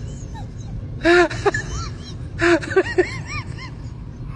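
Small puppy whining in a run of short squeaky cries, each rising and falling in pitch, mixed with a couple of breathy huffs.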